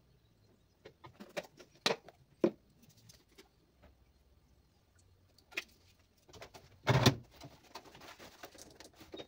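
Household objects being handled: a scatter of light knocks and clicks, a louder thump about seven seconds in, then soft rustling.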